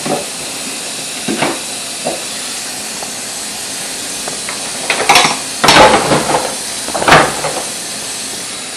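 Tap water running steadily into a kitchen sink while cups and dishes clatter in it as they are rinsed and tossed in: a few light knocks in the first two seconds, then a burst of loud clattering from about five to seven and a half seconds in.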